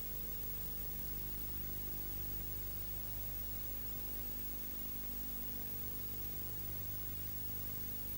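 Steady hiss with a low electrical hum underneath, from an old analog video transfer, with no other sound.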